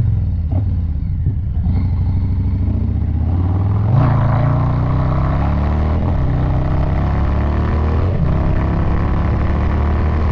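Harley-Davidson Low Rider S V-twin (Milwaukee-Eight 117) running through an aftermarket SP Concepts Big Bore 4.5 exhaust while riding. It revs up over the first few seconds and then holds a steady pull, with a brief change in note about eight seconds in.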